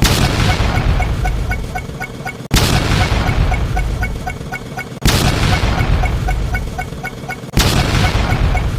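A looped sound-effect clip with a heavy boom that fades and restarts sharply about every two and a half seconds, four times in all. Under it runs a fast, even patter of short high pips.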